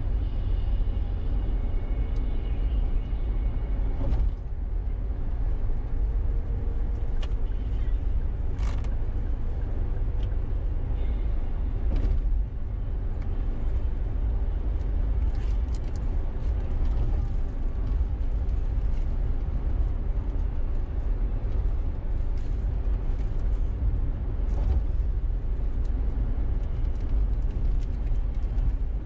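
Car cabin noise at highway cruising speed: a steady low rumble of tyres and engine, with a few short sharp knocks along the way.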